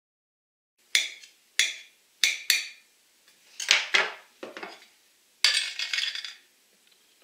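Kitchen knife blade tapping and scraping on a ceramic plate while dicing avocado: a series of sharp, uneven clicks starting about a second in, then a longer scrape near the end.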